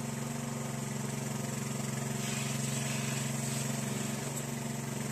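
Small engine of a water pump running steadily at constant speed, pumping a tide pool dry through a suction hose.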